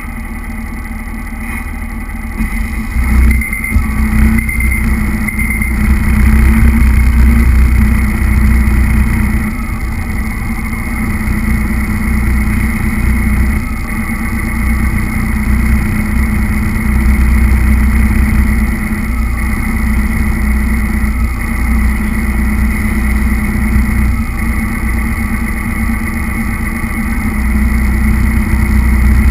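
Remote-control truck's motor and drivetrain running with a steady whine as it drives over a tiled floor, heard close through the camera mounted on the truck, with a heavy low rumble from the rolling wheels. It gets louder about 3 s in and eases off somewhat around 13 s.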